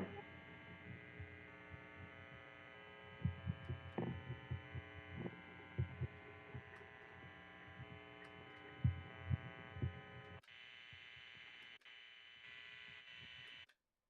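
Steady electric hum and buzz from an electric guitar's signal chain, left idling between sample passages, with scattered soft low thumps. It cuts off suddenly near the end.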